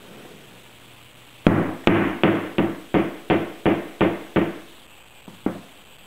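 A rapid run of about nine sharp knocks on wood, about three a second, each ringing briefly, then two lighter taps near the end.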